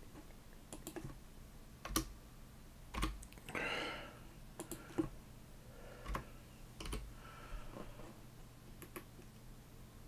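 Sparse, irregular computer keyboard keystrokes and mouse clicks as code is edited, a dozen or so single clicks. A brief soft rustle comes about three and a half seconds in.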